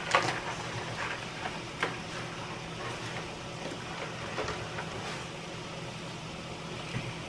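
Kitchen scissors snipping sweet potato leaves, several scattered snips with the loudest right at the start, over a low steady hum.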